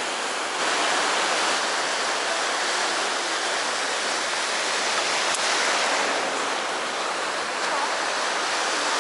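Steady rushing of surf washing on the shore, with one faint click about five seconds in.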